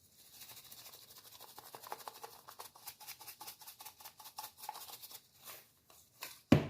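Garlic pepper seasoning shaken from its shaker onto raw chicken leg quarters: a quick, quiet rattling patter of many small ticks, then a single knock near the end.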